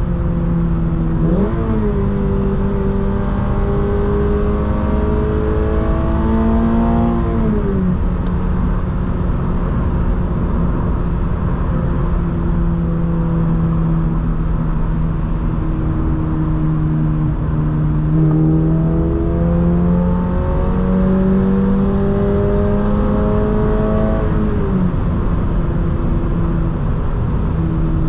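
Toyota GR86's flat-four engine through a Borla S-type exhaust, heard from inside the cabin while driving, over steady road rumble. The engine note climbs slowly twice, each time for about six seconds, and drops back sharply. Between the climbs it holds a steady cruising tone.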